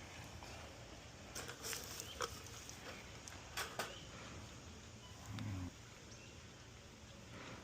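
A few sharp clicks and rattles, typical of a wire cage trap being handled. About five seconds in comes a short, low growl from the trapped opossum.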